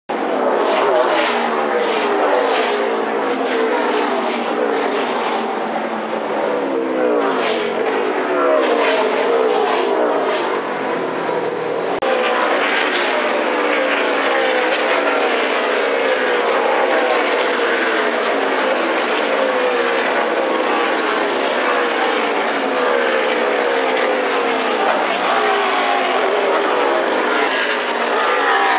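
NASCAR Cup stock cars' V8 engines racing by in a pack, a loud continuous din of several engines at once whose notes keep sliding down in pitch. The sound changes abruptly about twelve seconds in.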